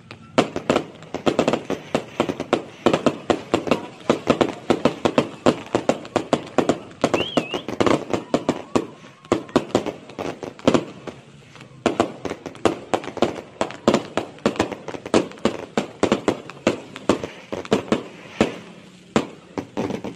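Aerial fireworks bursting in a rapid barrage of sharp bangs and crackles, several a second, with brief lulls near the middle and near the end.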